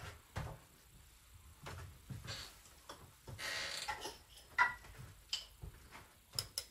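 Scattered light clicks and taps of kitchen utensils and spice containers being handled, with a short rustle about three and a half seconds in and a quick run of sharp ticks near the end.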